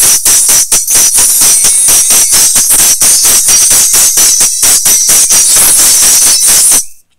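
Music played loud through a Comando CP24 car-audio tweeter: thin, treble-heavy sound with little bass and a fast, sharp beat, cut off suddenly near the end.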